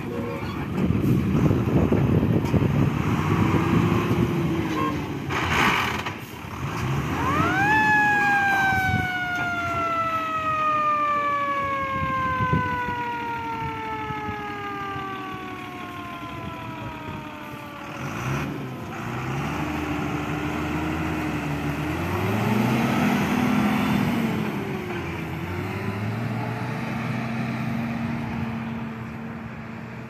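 Forest-service fire tanker truck driving past, its engine revving up and down, with a siren that climbs sharply about a quarter of the way in and then slowly winds down over about eight seconds.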